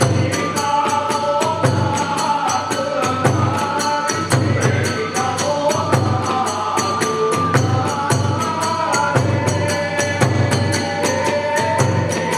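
Kagura hayashi music: small hand cymbals clashing in a fast even beat, about five strikes a second, over steady taiko drum beats, with a flute melody wavering above.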